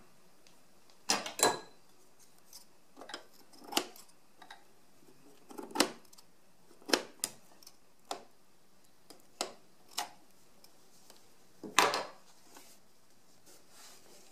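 Scissors snipping sewing threads: about a dozen sharp, separate snips and clicks at irregular intervals, with light handling of cloth between them.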